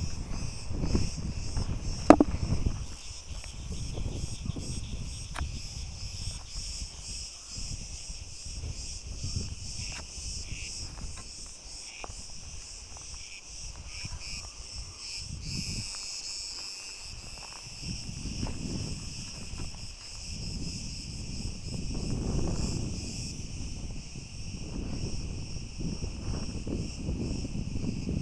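Insects chirring steadily in the dry grass, under close rustling and footsteps of someone walking through it, with one sharp click about two seconds in.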